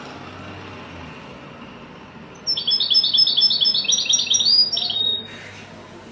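Goldfinch singing: a rapid run of high, quick notes lasting nearly three seconds, starting about two and a half seconds in and ending on a short held note.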